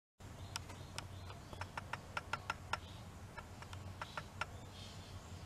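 Irregular light clicks and ticks, some with a short ringing tone, over a low steady hum.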